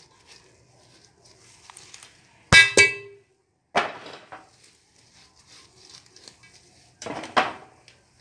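Two sharp metal clanks about a quarter second apart, each ringing briefly: a utensil knocking on the metal cooking pot. Then two short scraping, rustling bursts, one about a second later and one near the end, as the rice is handled in the pot.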